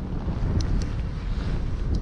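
Wind buffeting the microphone, a steady low rumble, with a few short clicks.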